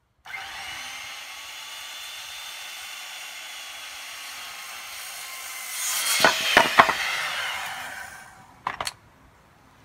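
Circular saw starting up and cutting through a wooden sill plate board with a steady whine. It gets louder with a few sharp cracks about six seconds in, then winds down. A couple of quick knocks come near the end.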